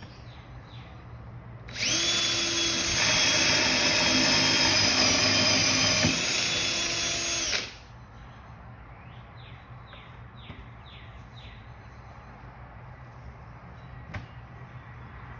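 DeWalt cordless drill, held in a portable drill guide, boring a 7/16-inch hole through 3/4-inch plywood. It spins up about two seconds in, runs at a steady high whine for about six seconds, and stops.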